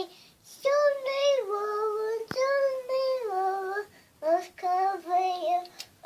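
A young girl singing a simple tune in long held notes, in two phrases with a short break between them. A single sharp click sounds about two seconds in.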